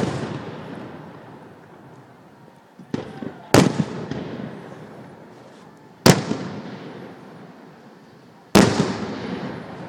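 Aerial firework shells bursting overhead: four loud booms about two and a half seconds apart, with a smaller crack just before the second, each trailing off in a long rolling echo.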